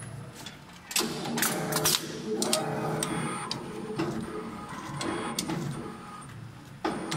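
Automatic CNC rod-bending machine forming a 12 mm rod into a car muffler hanger: its motors whir in short runs, with repeated sharp clicks and knocks as the head turns and bends the rod.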